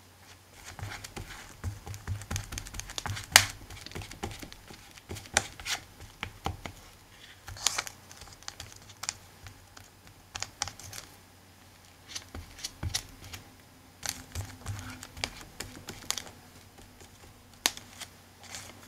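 Irregular light clicks and taps, several a second, with one sharper tap about three seconds in, as a silicone glue brush is worked and dabbed over glued fabric on chipboard book covers and the fabric is pressed down by hand.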